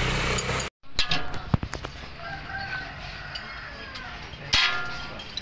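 A rooster crowing, with a few sharp metallic clicks of spanners on the steering linkage about a second in.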